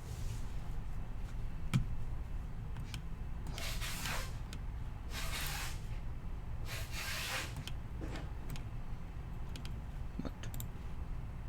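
Three short hissing swishes about a second and a half apart, with a few faint clicks, over a steady low hum.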